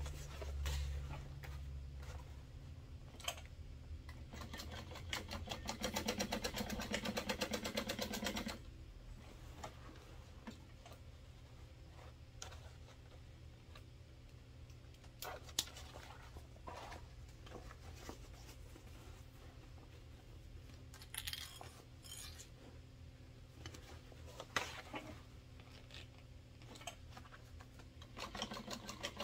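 Juki industrial sewing machine stitching a boxed corner seam in a quick run of about four seconds, then stopping. Scattered clicks of fabric and clips being handled follow, and stitching starts again near the end.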